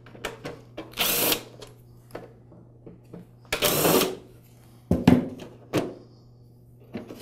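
Cordless screwdriver running in two short bursts, about a second in and again near four seconds, backing out the two screws that hold the machine's back panel. A few sharp clicks follow near the end.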